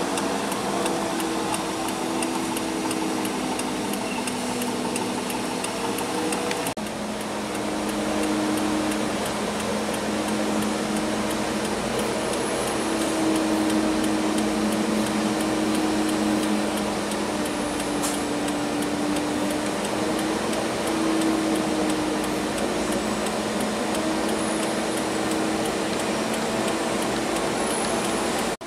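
Steady engine drone and road noise heard from inside a vehicle, with a low hum that drifts slightly in pitch. The sound changes abruptly about seven seconds in.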